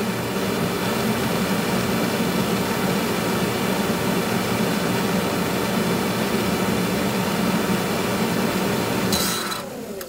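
A new aftermarket HVAC heater blower motor on a 1989 Buick LeSabre running at a steady speed, with a hum and a rush of air from the fan, smooth and with little vibration: the replacement motor works. Near the end it is switched off and the sound falls away.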